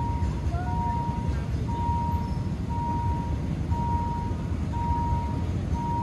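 An electronic beeper sounding one steady high beep about once a second, each beep lasting most of the second, over a constant low rumble.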